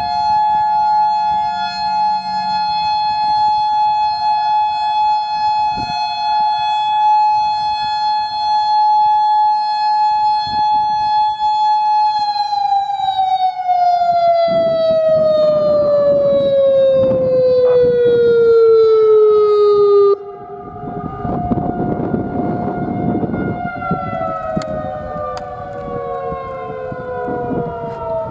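Federal Signal outdoor warning sirens, led by the nearby Modulator 5020B, sounding a loud steady two-tone wail. About 12 seconds in they wind down, the pitch falling for some eight seconds until the nearest siren drops out suddenly, leaving more distant sirens still winding down.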